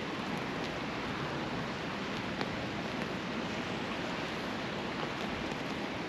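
Steady rush of sea surf, with a few faint clicks.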